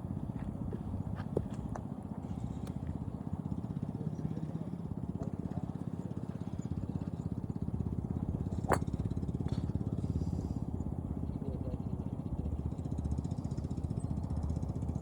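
A steady low rumble throughout, with one sharp crack of a golf club striking a ball about nine seconds in.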